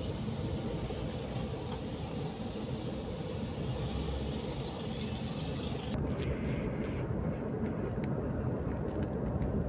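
Vehicle engine and road noise heard from inside the cabin while driving, a steady low rumble. About six seconds in the sound changes and a few light clicks follow.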